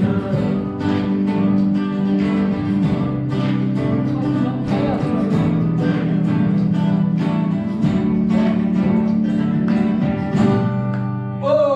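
Acoustic guitars strummed in a steady rhythm, with voices singing along; the music breaks off abruptly near the end.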